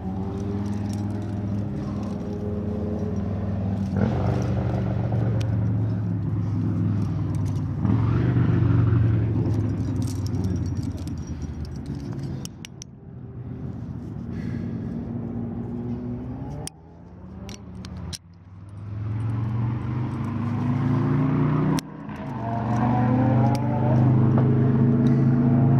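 A steady engine drone from a motor vehicle that swells and fades and rises in pitch in the last few seconds, with a few sharp clicks of metal climbing gear.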